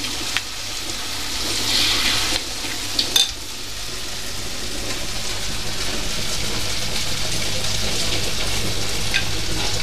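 Batter-coated tempeh (mendoan) frying in a wok of hot oil, a steady sizzle with a brief louder flare about two seconds in. A couple of sharp clicks come a little after three seconds.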